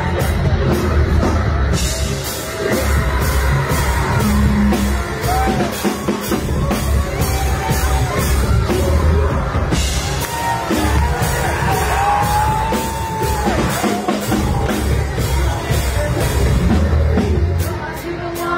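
Rock band playing live: drum kit, heavy bass and a male singer holding long notes over the band.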